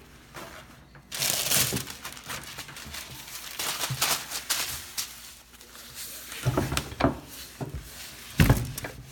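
Paper towels crinkling and rubbing over a wooden workbench as glue drips are wiped up, with three dull knocks in the last few seconds.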